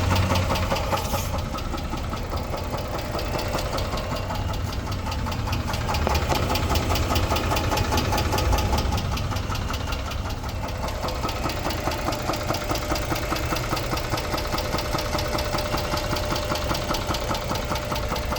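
2006 Chrysler 300's 3.5-litre V6 engine running with a rapid, even knock that keeps time with the engine: the engine knock the car is being shown for.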